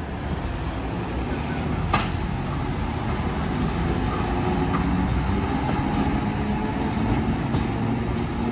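Streetcar running past at low speed on street-running track: a steady rumble of steel wheels on rail that grows louder as it comes alongside. A sharp click comes about two seconds in.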